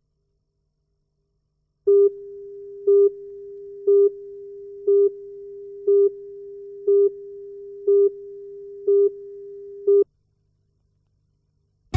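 Videotape countdown leader: a steady tone with a louder beep once a second, nine beeps in all, starting about two seconds in and cutting off about two seconds before the end.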